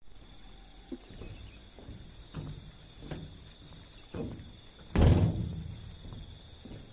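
Steady high chirring of night insects such as crickets, with a few soft low sounds falling in pitch, then one loud sudden thump about five seconds in that dies away over about a second.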